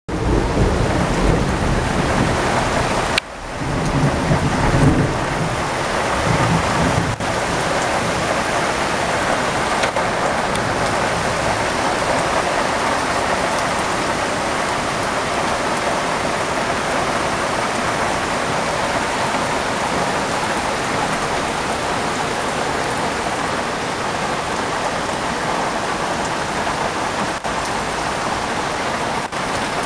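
Heavy rain falling steadily on garden trees and shrubs, with low thunder rumbling through the first several seconds, loudest about four to five seconds in.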